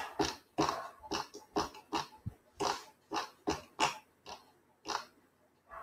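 Computer keyboard keys struck one after another in an uneven series, about two strokes a second, close to the microphone.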